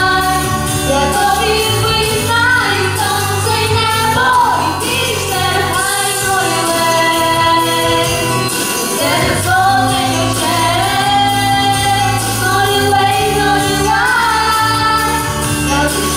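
Young voices singing through microphones over a recorded pop backing track with a steady bass line; the bass drops out for a few seconds midway, then returns.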